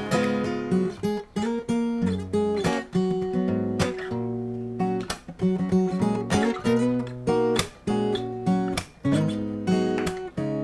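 Shelter Celtic 100 dreadnought electro-acoustic guitar played solo, strummed chords alternating with picked bass notes.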